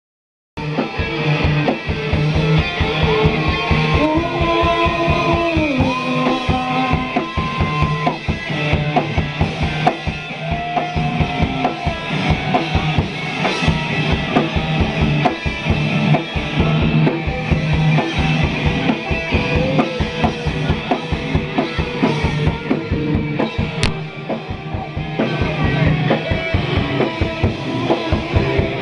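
Live noise music: a fast, regular pulsing low beat under a steady low drone, with sliding electronic tones that glide up and down early on. It cuts in abruptly about half a second in and stays loud throughout.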